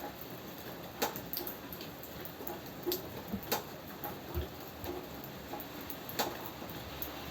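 Steady patter of rain with heavier drops tapping sharply on a hard surface at irregular intervals, a few of them clearly louder than the rest.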